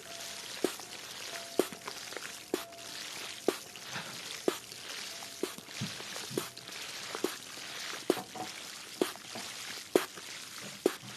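ASMR water trigger: water pouring or running in a steady hiss, with a sharp click about once a second, some of them ringing briefly.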